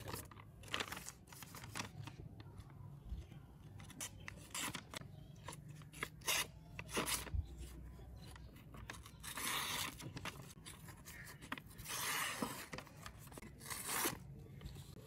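Sharp hand-made knife blade slicing through a sheet of paper in a series of short cutting strokes, with paper rustling between them. A few longer, drawn-out slices come in the second half.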